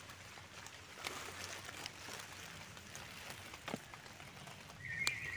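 Faint rustling of wet forest undergrowth and leaf litter, with a few scattered snaps and ticks from someone moving through it. A short, faint high-pitched sound comes near the end.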